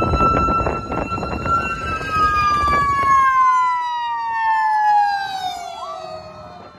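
Fire engine siren wailing as the truck approaches and passes. Its pitch slides steadily down over the second half and fades near the end. A passing vehicle's low road rumble runs under it for the first few seconds.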